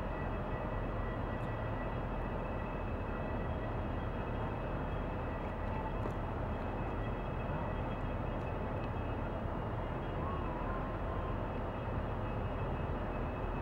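The engines of the hopper dredger Reimerswaal running steadily as she moves slowly through the harbour: a constant low rumble with a thin, steady high whine over it.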